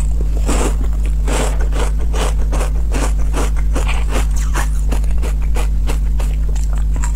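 Crunching and chewing of matcha-powdered ice, sharp crisp crunches about twice a second, over a steady low hum.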